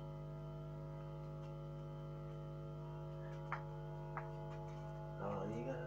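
Steady electrical hum with faint clicks about three and a half and four seconds in. Near the end a short pitched sound rises and falls.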